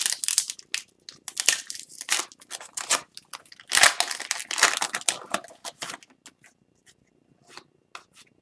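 Foil wrapper of an Upper Deck hockey card pack being torn open and crinkled by hand, a dense run of crackling tears for about six seconds. After that only a few faint rustles follow as the cards are slid out.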